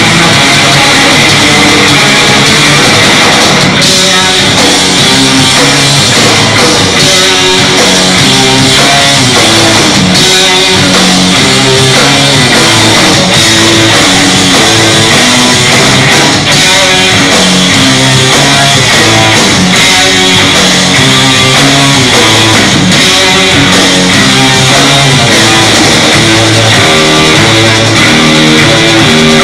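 Live doom metal band playing loud: distorted electric guitar riffing over bass and drums, without vocals.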